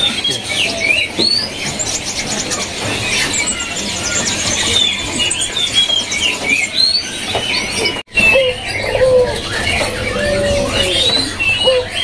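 Caged songbirds keep up dense, high chirping and short whistles. After a brief cut about eight seconds in, a local puter (ringneck dove) coos repeatedly in low, gliding notes under the chirping, a courting coo to a female.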